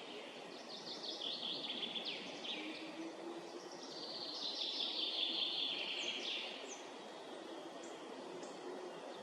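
Woodland songbirds singing in several trilled, chirping phrases, the fullest one about four to six seconds in, over a steady background hiss and a faint low hum.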